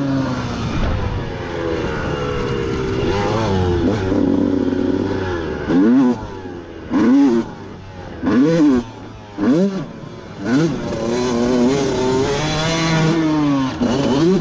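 Two-stroke motocross bike engine being ridden. It runs steadily for the first few seconds. From about the middle it gives about five short throttle blips, each sharply rising and falling in pitch. It then settles back into a steadier pull near the end.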